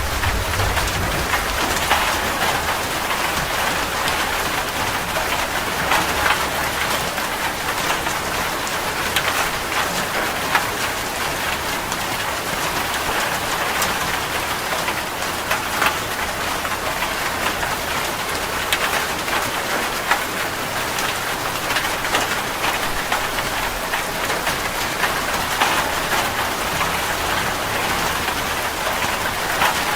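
Steady rain falling, with many separate drop strikes ticking through an even hiss.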